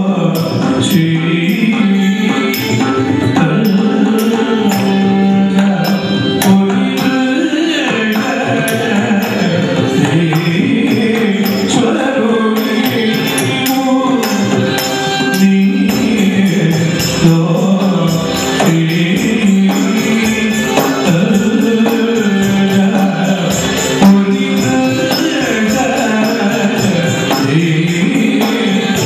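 Live Carnatic accompaniment to Bharatanatyam: a varnam in raga Khamas, sung over mridangam and violin, with the nattuvangam cymbals striking the rhythm in quick, regular strokes.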